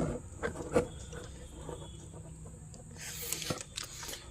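Handling noises while a washing machine spin motor is being wired: a few sharp clicks and taps at the start and about a second in, then a short scratchy hiss about three seconds in, followed by more knocks. The motor is not running.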